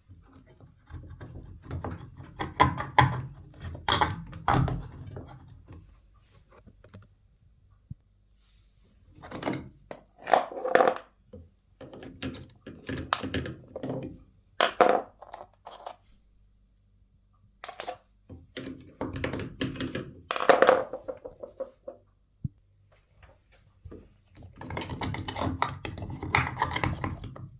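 Bursts of knocking and clattering, each lasting a few seconds, with quiet gaps between: hands handling and working on washing machine parts.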